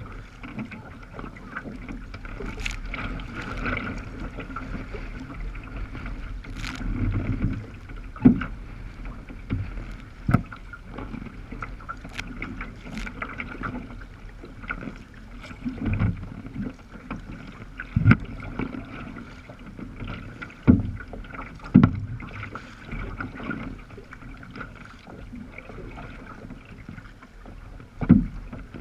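Sea kayak moving through choppy water: water sloshes steadily along the hull, and every few seconds a wave slaps sharply against the bow.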